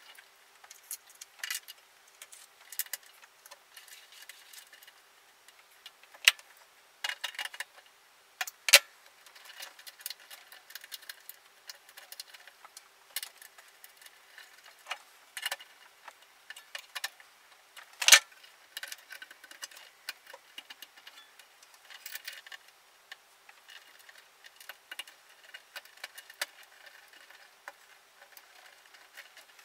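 Scattered small clicks and rattles of hands refitting a MIG welder's control board and its wire connectors inside the sheet-metal casing. There are two sharper knocks, about 9 and 18 seconds in.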